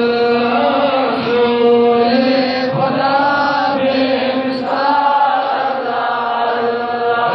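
A man's voice chanting a Kashmiri naat into a microphone, holding long notes that bend gently in pitch.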